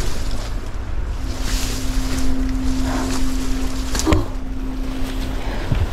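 Wind rumbling on the camera microphone outdoors, a steady low noise, with a steady low hum through the middle and a single sharp click about four seconds in.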